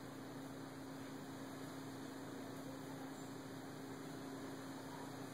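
Faint steady electrical hum at one low pitch over a soft hiss, with nothing else standing out.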